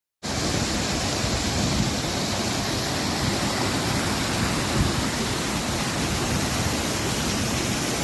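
Small waterfall cascading over gritstone rocks, a steady, unbroken rush of water heard close up.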